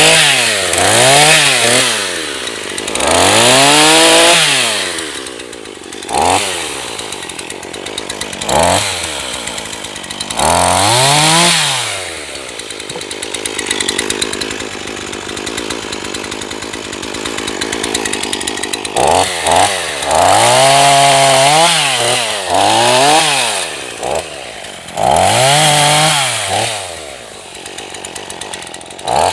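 Two-stroke gasoline chainsaw, a NEO-TEC NH 841, given repeated short bursts of throttle: the engine climbs to high revs and falls back toward idle again and again. In the middle there is a longer stretch of lower, steadier running.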